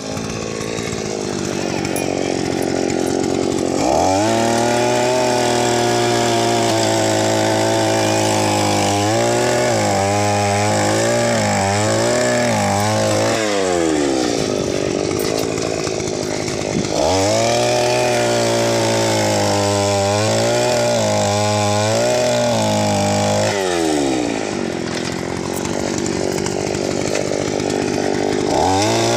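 Petrol earth auger's small engine idling, then revving up as the auger bores into the soil, its speed wavering under load, then dropping back to idle. This happens twice, and the engine revs up once more near the end.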